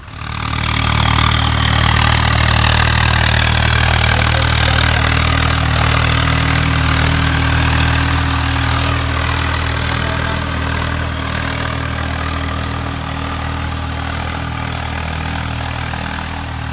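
Diesel tractor engine sound: a steady low drone, idling-like and unchanging in pitch, with a higher rushing noise over it. It comes in abruptly at the start and eases a little in the second half. It goes with a model Swaraj 855 4x4 tractor pulling a loaded trolley.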